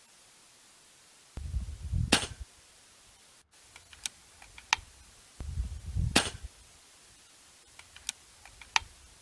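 Two sharp shots from an Air Arms S510 .22 PCP air rifle, about four seconds apart, each with a low rumble of handling just before it and a few light clicks after it.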